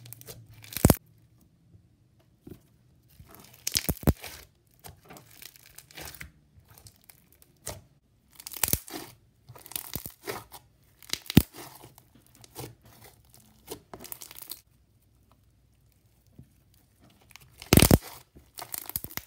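Clear glitter fishbowl slime full of plastic beads being pressed, squeezed and kneaded by hand. It gives irregular bursts of sticky handling noise with short pauses between squeezes. Sharp pops come about a second in, around four seconds, and near the end.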